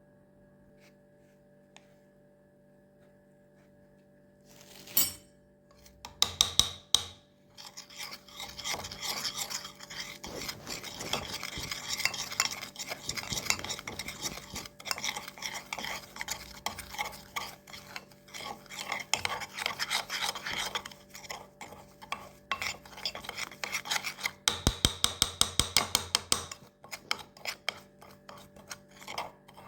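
A spoon stirring and scraping rapidly in a small dish, as when mixing charcoal powder with lemon juice into a paste. A single knock comes about five seconds in, and the scraping starts a second later.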